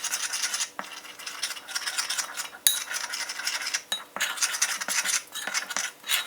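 Maida flour, salt and water being stirred into a thick batter in a bowl: rapid, rhythmic scraping of a utensil against the bowl, with a sharp clink a little under three seconds in and another at about four seconds.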